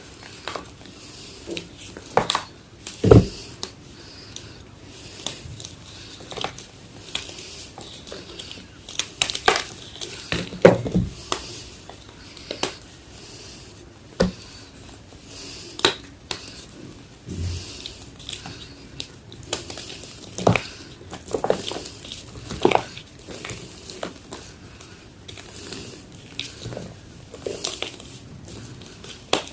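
Reform gym chalk being crunched: irregular sharp crunches and crumbling crackles, with short pauses between them.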